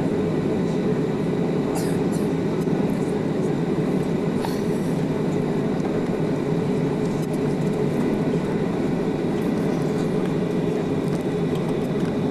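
Steady low rumble of cabin noise inside a Boeing 737 on the ground before takeoff, its engines at idle, with a few faint clicks about two and four seconds in.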